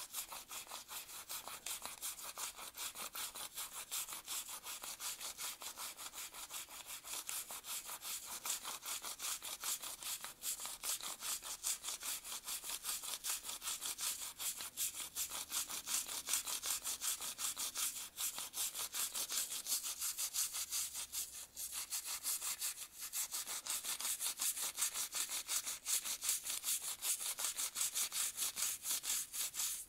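Toothbrush bristles scrubbing lead and carbon fouling off a Silencer Co Sparrow 22 rimfire suppressor part, in quick, even back-and-forth strokes, a few a second, that keep up without a break.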